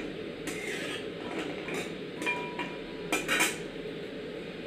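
Metal spatula scraping and clinking against a steel kadhai while cashews are stirred during dry roasting, in scattered strokes over a steady low hiss. The scrapes come thickest about three seconds in.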